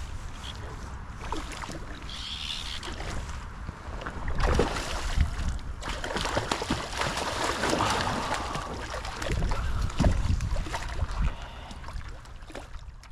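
Water splashing irregularly as a large brown trout thrashes at the surface, over a steady rumble of wind on the microphone.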